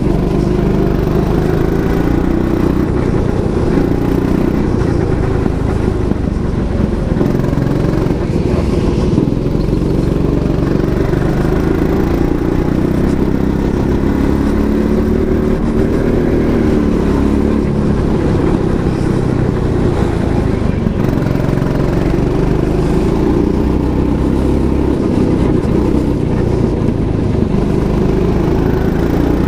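Go-kart running at speed through laps of a track, its motor note rising and falling with the throttle.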